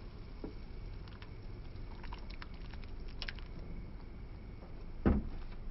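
Torn aluminum soda can being handled, its jagged metal giving small crinkling clicks, then a single dull thump about five seconds in.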